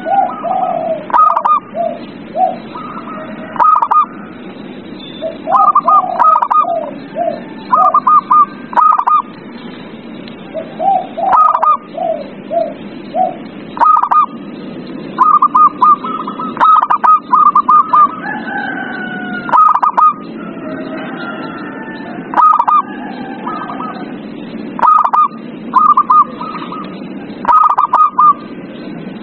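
Zebra doves (perkutut) cooing: clusters of quick, clipped, repeated notes that come again every second or two, over a steady background hiss. About two-thirds of the way through, a longer, drawn-out falling call from another bird cuts in.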